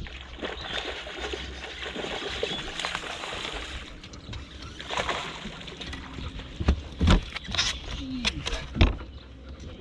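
Water splashing and sloshing against a fishing boat, then several sharp knocks and thumps on the boat.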